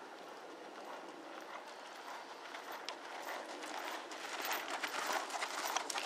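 A horse's hoofbeats on arena sand under a rider, growing louder as the horse comes close and passes by in the last couple of seconds.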